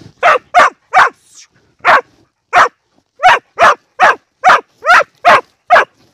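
Hunting dog barking repeatedly into an armadillo burrow: about a dozen sharp, loud barks roughly half a second apart, with a short pause about a second in. The dog is baying the armadillo in its hole.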